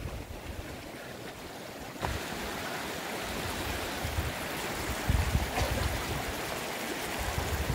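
A steady rushing hiss with no tone in it, which grows suddenly louder about two seconds in. Low gusts of wind buffet the microphone, strongest about five seconds in and near the end.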